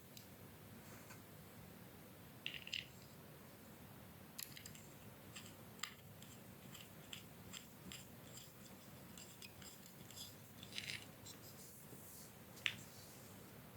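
Faint, scattered light clicks and short scrapes of small parts of a mini turbine washing machine being handled during its cleaning and repair, with one sharper click near the end.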